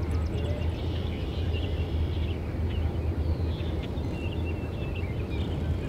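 Open-field ambience: a steady low rumble with faint, scattered high chirps and short whistled notes.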